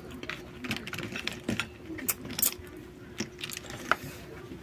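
Eating noises while chewing live crab and snails: irregular clicks, crackles and crunches at uneven intervals, over a faint steady hum.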